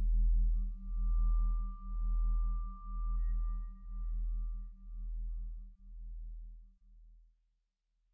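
Electronic ambient drone: a deep tone throbbing about once a second, with a fluttering buzz above it and a thin high sine tone. It fades out and stops about seven seconds in.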